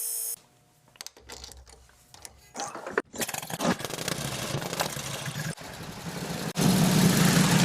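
1941 Indian Chief's flathead V-twin engine starting after a few clicks and running with an uneven, pulsing beat, getting louder about six seconds in.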